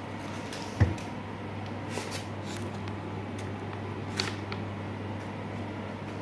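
Handling noise from a small solar panel and its charging cables: a single dull thump about a second in, then light clicks and rustles, over a steady low hum.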